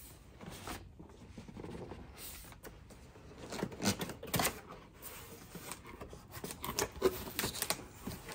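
Cardboard boxes being handled and opened: cardboard scraping and rubbing as it is slid and turned, and box flaps folded open. It comes as an uneven run of scrapes and soft knocks, the loudest about four and seven seconds in.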